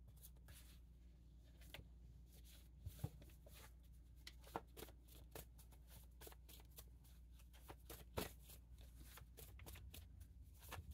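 Faint shuffling and handling of a deck of reading cards: a run of soft, irregular card clicks and flicks.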